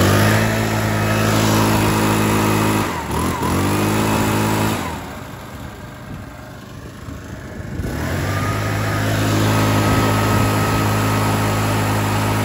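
80cc four-stroke backpack leaf blower revved at high throttle, eased off and opened again about three seconds in, dropping back to idle at about five seconds, then revved up again about eight seconds in and let off at the end. The engine runs smoothly, described as very quiet for a four-stroke.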